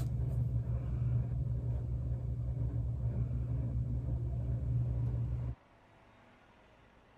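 Steady low background rumble that cuts off abruptly about five and a half seconds in, leaving near silence.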